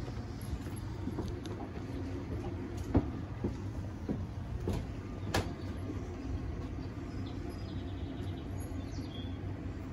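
A steady low machinery hum, with a few sharp clicks and knocks: the loudest about three seconds in and another about five and a half seconds in.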